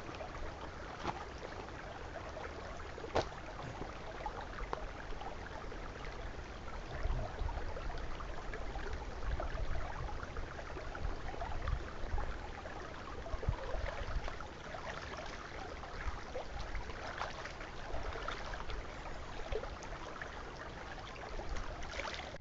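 A small shallow stream running and trickling over stones, with a low rumble underneath and one sharp tap about three seconds in.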